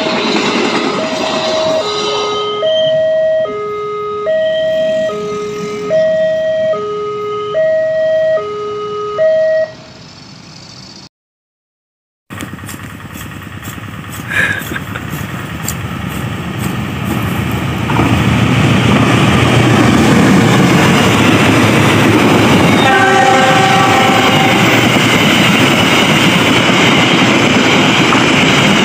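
A passenger train running past on the track, with an alternating two-note warning tone repeating over it. After a short break, another train approaches and passes close by with a loud, steady rumble of wheels on rail, and a short horn blast about two-thirds of the way through.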